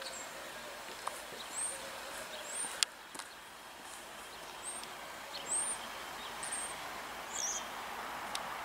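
Small birds chirping: about six short, high calls, each rising then falling, over a faint steady rushing noise that builds slightly near the end. A single sharp click just under three seconds in.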